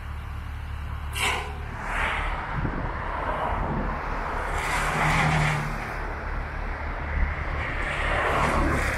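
Komatsu WA430-6 wheel loader's diesel engine running steadily, its sound swelling and easing a few times. A short hiss comes about a second in.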